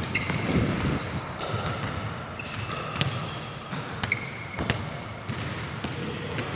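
Basketballs bouncing on a hardwood gym floor, several separate sharp bounces spread through, with short high squeaks of sneakers on the court.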